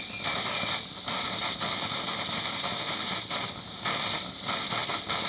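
Vaporising methanol pressure burner of a Saito model steam boiler hissing, cutting out briefly and coming back several times at uneven intervals: the burner is not yet burning steadily, still trying to ignite properly.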